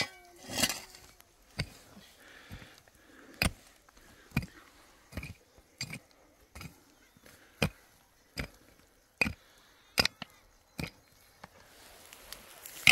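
A hoe chopping into dry, stony soil, about one sharp strike a second, with the blade now and then clinking on stones; the strikes stop near the end.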